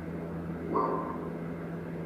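Steady low electronic hum under a hiss of static, with a short higher tone about three-quarters of a second in.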